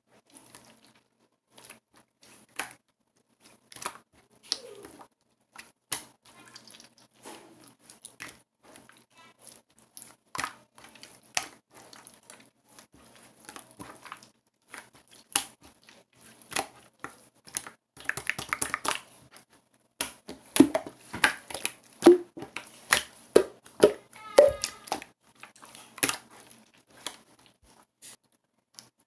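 Close handling of tape and paper: tape tearing and peeling with paper crinkling, a string of short rustles and clicks with a longer crackling stretch about two-thirds of the way in.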